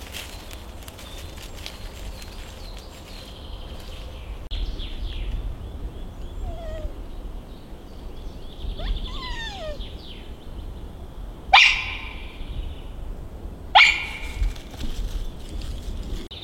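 Two loud, sharp barks about two seconds apart, from an animal in the woods, with fainter bird calls before them.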